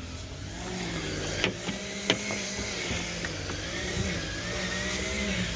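A small engine running steadily in the background, its hum wavering a little, with two sharp clicks about one and a half and two seconds in.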